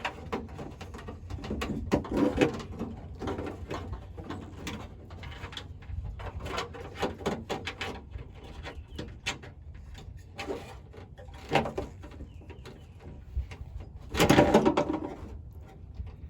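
Handling noise of wiring and plastic light parts: scattered clicks, rustles and scrapes as a wire harness is fed through a hole in the light housing. A louder scraping squeak lasting about a second comes near the end.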